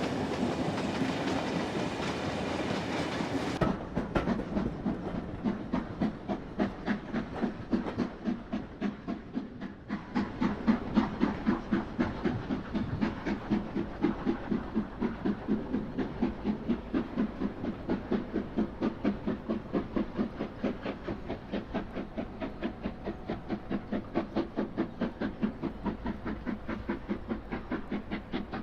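Model steam locomotive's sound effects: a burst of steam hiss for the first few seconds, then steady chuffing at about three beats a second.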